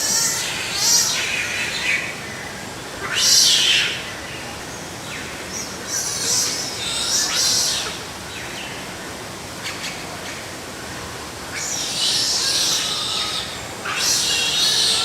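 Otters calling: high-pitched squeaks and chirps in short bouts every few seconds.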